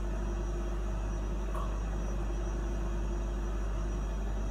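Steady low machine hum that does not change.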